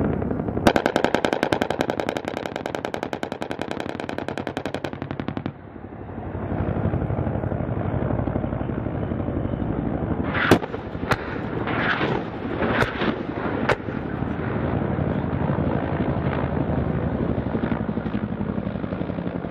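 A long burst of very rapid, evenly spaced gunfire from an AH-1Z Viper's 20 mm three-barrel rotary cannon, lasting about four seconds. About ten seconds in come several sharp cracks with short rushing sounds as rockets are fired. A steady rumble runs underneath throughout.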